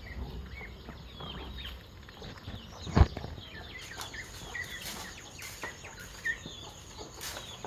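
Chickens clucking and chirping with many short, falling calls, as fowl gather at feeding time. A single sharp thump about three seconds in is the loudest sound.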